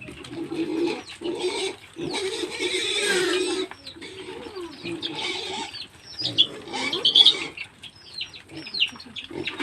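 Pigs grunting and squealing, with a longer, louder call about two seconds in. Short, high, falling bird chirps run through it, thickening near the end.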